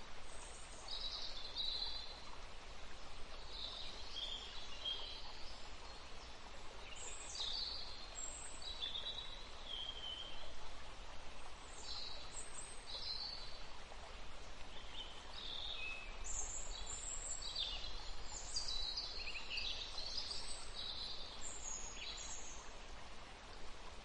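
Small songbirds chirping and twittering in quick, high-pitched phrases that come in clusters a second or two apart, busiest toward the end, over a steady background hiss.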